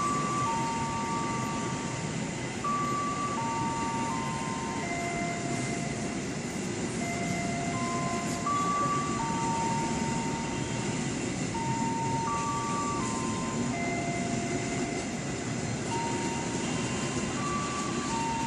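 Empty flat wagons of a freight train rolling past on the rails, a steady rumble of wheels. A simple tune of single held whistle-like notes plays over it.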